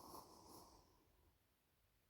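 Near silence: a sleeper's pause between snores, with only a faint breath in the first second.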